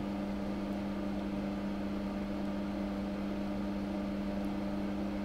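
Steady electrical hum with a faint hiss under it, holding one pitch throughout: bench equipment running in the background.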